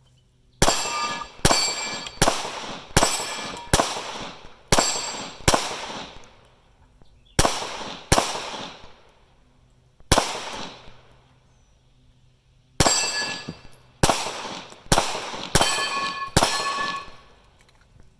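About fifteen 9mm shots fired one at a time from a Glock 48 pistol, unevenly paced with pauses of one to three seconds; many shots are followed by a metallic ringing.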